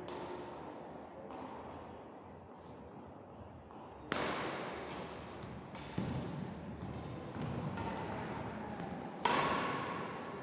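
Badminton rackets striking the shuttlecock three times in a rally, each sharp hit followed by a long echo in the hall. Between the hits come short high squeaks of shoes on the wooden court.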